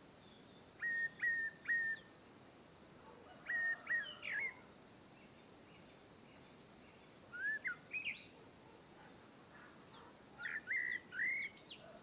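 Great tit calling: four short bursts of three or four clear notes each, spaced a few seconds apart.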